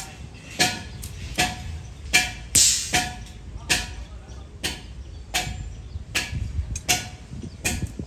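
Repeated hammer blows on steel, about ten evenly paced strikes, each leaving a short metallic ring.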